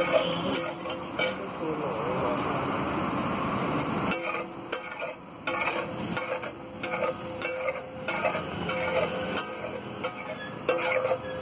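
Metal spatula stirring and scraping thick pav bhaji mash across a hot flat griddle (tawa), over the sizzle and bubble of the cooking mash. After about four seconds the steady sizzle thins and the spatula's clicks and scrapes against the metal stand out.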